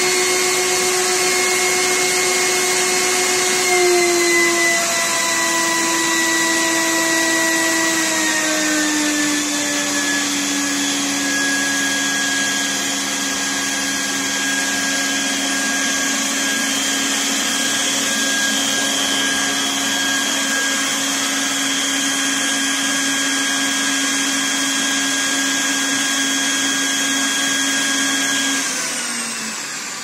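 Homemade central vacuum's two three-stage vacuum-motor turbines, connected in series, running with a steady whine over rushing air. The pitch steps down twice in the first ten seconds, and near the end the motors wind down.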